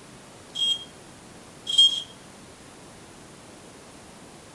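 High-pitched electronic beeps from a PIR motion detector's audio test speaker, signalling that the detector has tripped on motion: a short beep, then a slightly longer one about a second later, and a third starting right at the end.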